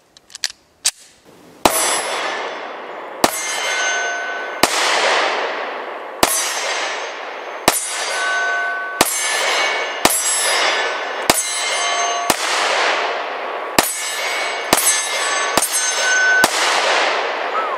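Springfield Armory XD9 sub-compact 9mm pistol fired about thirteen times at a steady, unhurried pace, roughly one shot every second to second and a half. Each sharp crack is followed by a long ringing decay. Two faint clicks of the pistol being handled come just before the first shot.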